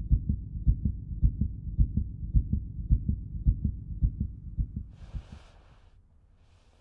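Fetal heartbeat as heard on a Doppler ultrasound: fast, regular beats that fade out about five seconds in. A short hiss follows.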